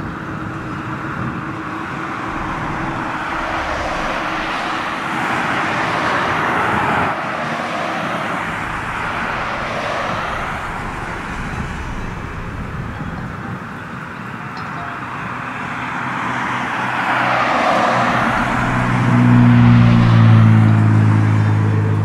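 Road traffic: cars passing one after another, each swelling and then fading away, with a deeper steady engine hum coming in near the end.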